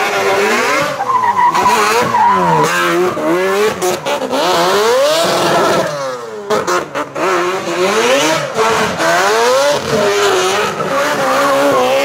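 A drift car's engine revving hard up and down, its pitch rising and falling every second or two as the car slides, with tyres squealing and skidding under wheelspin.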